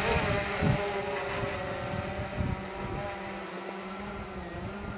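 Quadcopter's electric motors and propellers humming in flight, a steady hum of several tones that waver slightly as the motor speeds shift.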